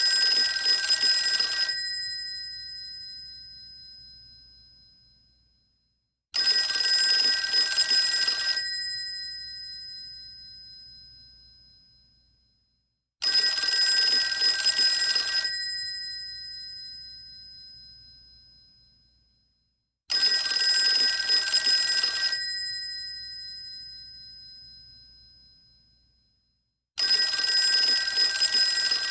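Old-style telephone bell ringing in rapid bursts of about two seconds, the ring dying away slowly after each. The burst comes five times, about seven seconds apart.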